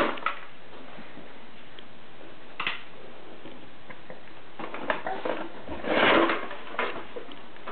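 A child's hard lunchbox handled on a wooden floor: a few scattered knocks and clicks, then a louder scrape and clatter about six seconds in as it is dragged and lifted by its handle.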